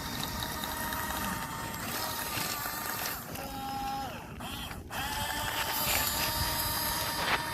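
Small electric motors of a Huina radio-controlled excavator whining as it works. The pitch dips and the whine stops briefly a little past halfway, then picks up again.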